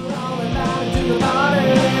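Live rock cover-band music with electric guitar over a drum beat, fading up at the start.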